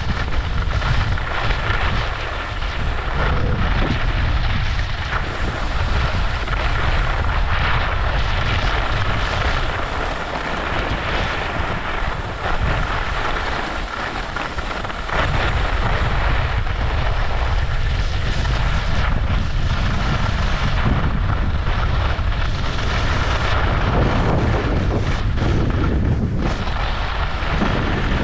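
Wind buffeting a moving camera's microphone during a ski descent, a steady rumble that swells and eases, with skis hissing and scraping over groomed snow.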